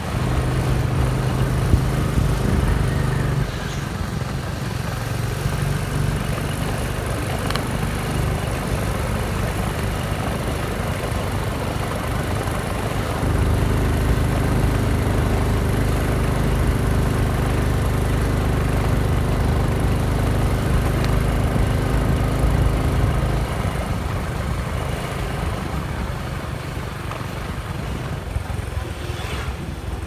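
Small motorcycle engine running steadily while riding along a road, with wind and road noise. Its note fades a little about four seconds in, comes back louder about thirteen seconds in, and eases off again near the end.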